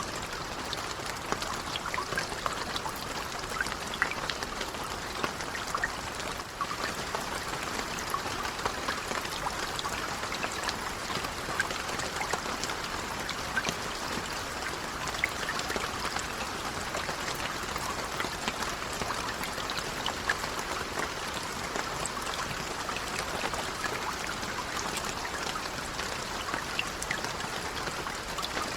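Steady, gentle rain falling, an even patter with many small drop ticks scattered through it.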